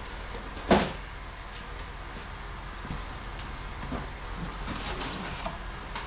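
One sharp thump about a second in, then softer scraping and rustling of a cardboard box as it is set on a stack of boxes and its flaps are pulled open.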